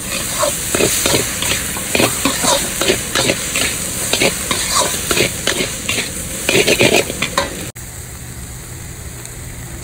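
Long-handled metal wok spatula scraping and tossing minced pork and curry paste around a hot wok over frying sizzle, in irregular strokes: the dry-frying (kua) stage, cooking the paste out until it is dry. About three-quarters of the way through the sound cuts and the frying goes on quieter and steadier.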